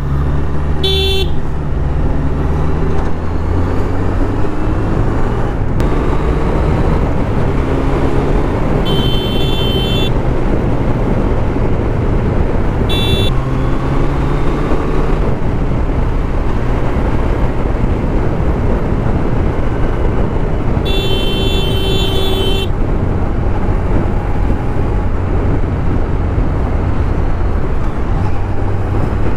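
Kawasaki Z900 inline-four motorcycle engine running while riding through traffic, rising in pitch several times as it accelerates, over steady road and wind rumble. Horns toot four times, the last toot longest.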